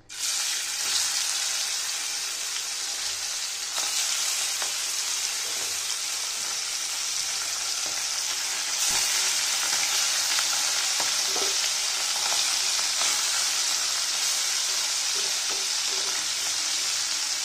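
Small turmeric-coated puti fish (pool barb) sizzling as they are dropped into hot mustard oil in a kadai. The sizzle starts suddenly and gets louder at about four and nine seconds in, as more fish go into the oil.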